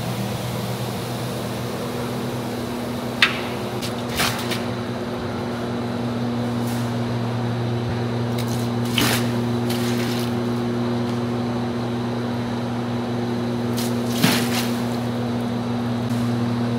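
Steady low mechanical hum of kitchen equipment, with four short sharp metal clinks spread through it, from a steel ladle knocking against a large cooking pot.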